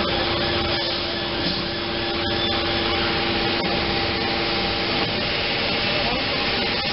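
Steady machine noise from a line of bladder-type motorcycle tire curing presses: a constant hum with hissing and a few faint metallic clicks. One of the hum tones cuts out about five seconds in.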